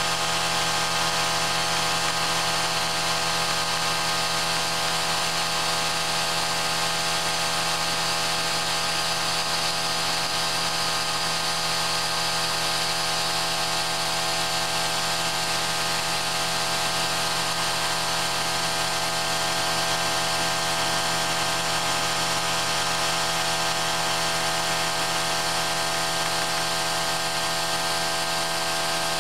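Small milling machine running steadily, its end mill cutting a slot into the laminated steel armature of a 540-size brushed motor. It gives a constant machine whine made of several held tones.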